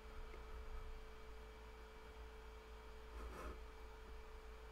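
Quiet room tone with a faint steady electrical hum at one pitch over a low rumble, and a brief soft rustle a little past three seconds in.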